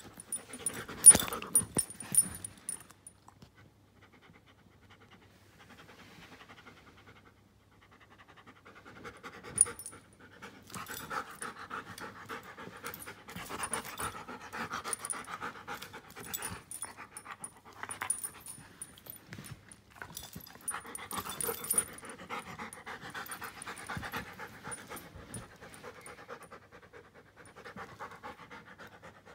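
Giant schnauzer panting close to the microphone in long stretches, after a few sharp knocks near the start and a short quiet spell.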